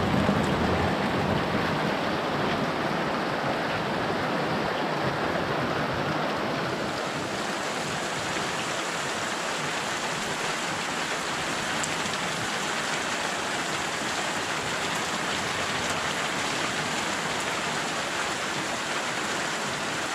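Steady rain falling, an even hiss of drops that grows a little brighter about a third of the way through.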